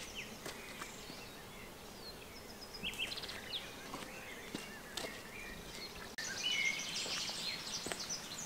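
Woodland birds chirping and trilling, with scattered footsteps on a dirt track. About six seconds in, the sound changes abruptly to a denser, louder chorus of birdsong.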